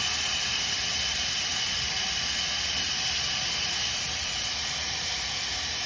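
Water running steadily from a Delta kitchen faucet into the sink, a strong even hiss.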